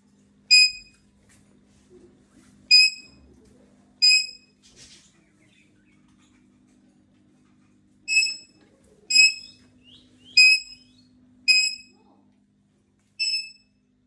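Indian ringneck parakeets giving short, shrill screeches, eight in all: three in the first few seconds, then five more close together in the second half. A faint steady hum lies underneath.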